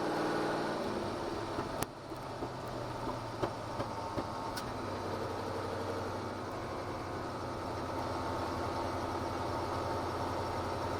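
Ford GT40's V8 engine idling steadily at a low, even beat, heard from inside the car, with a few sharp clicks in the first half.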